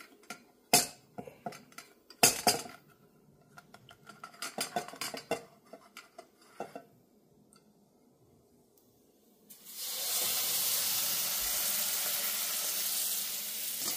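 A slotted spatula clinks and knocks against a stainless steel bowl as a slice of bread is dipped in egg wash. About ten seconds in, a sudden steady sizzle starts as the soaked French toast slice goes into the hot frying pan with the sausages.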